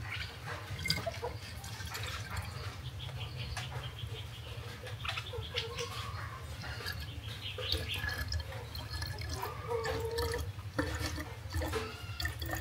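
Drinking water being poured into a bottle packed with ripe plantain, in uneven splashes and trickles with short pitched blips as it fills, over a steady low hum.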